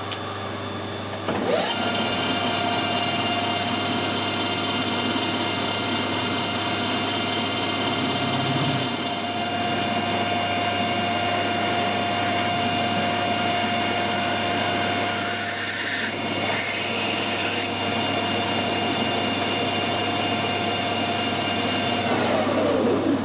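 Metal lathe spinning up about a second in and running with a steady whine while a drill in the tailstock chuck bores into a brass part held in the chuck. It winds down near the end.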